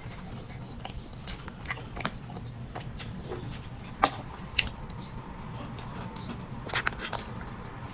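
A person chewing and biting soft soy-milk bread, with scattered small wet mouth clicks and smacks over a faint steady low hum.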